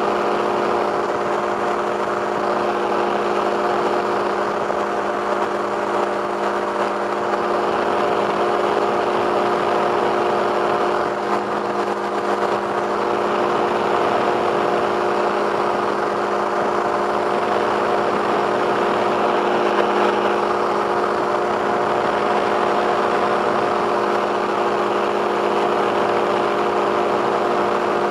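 Two-stroke microlight engine running in flight at a steady, unchanging pitch, heard from inside the cockpit.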